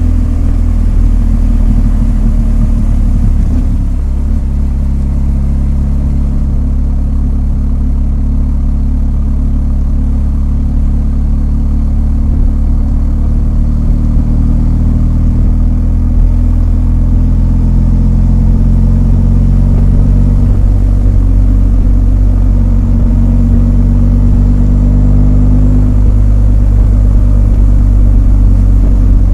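BMW R1250 GS motorcycle's boxer twin engine running under way, a steady deep note whose pitch shifts a few times as the throttle changes.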